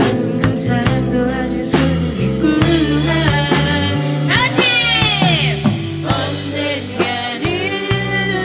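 Live band playing rock music on electric guitar, bass guitar, drums and keyboard, with a singer; the voice or guitar makes bending, sliding notes about halfway through.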